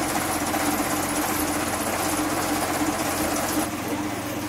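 A motor-driven machine running steadily with a fast, even rattle and a steady hum. It drops a little in level about three and a half seconds in.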